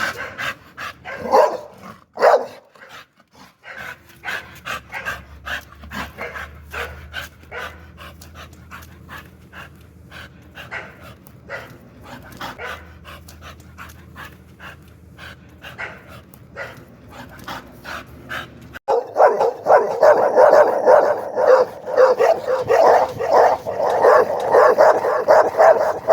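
Pit bull barking angrily. A few loud barks come in the first seconds, then a quieter stretch of rapid short sounds. About 19 s in, a louder run of fast, continuous barking cuts in suddenly.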